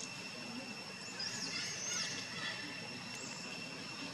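Forest ambience: a steady high-pitched insect drone, with a few short, high chirping calls that rise and fall between about one and two and a half seconds in, and one more near three seconds.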